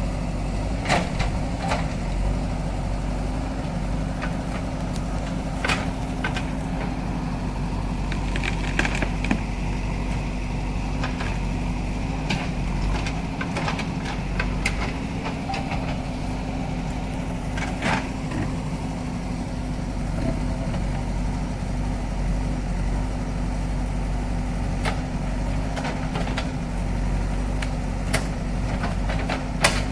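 JCB backhoe loader's diesel engine running steadily, with sharp knocks now and then.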